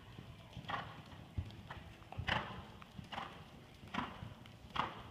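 Young hunter horse moving at a steady gait on the soft sand footing of an indoor arena, its hoofbeats and stride sounds falling in a regular beat a little under once a second.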